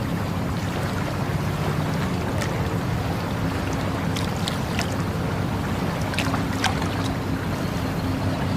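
Water flowing with a steady low rush. Short, bright splashing or dripping sounds come now and then, mostly in the middle seconds.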